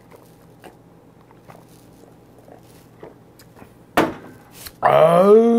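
A man drinking makgeolli from an earthenware bowl: a few faint swallows, then the bowl knocked down on the wooden table about four seconds in. Near the end comes a loud, drawn-out wordless exclamation, the 'aah' after a swig of liquor.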